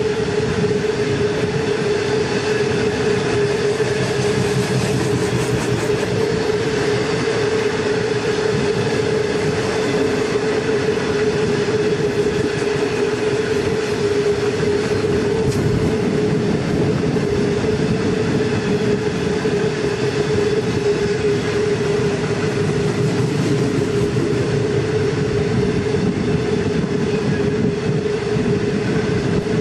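Long freight train running, heard from aboard: a steady rolling rumble of wagon wheels on the rails, with a steady hum-like tone held over it.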